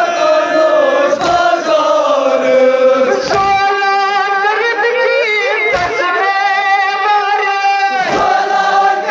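Kashmiri noha, a mourning lament chanted by a group of voices in unison, with long held notes in the middle, and a low thump about every two seconds.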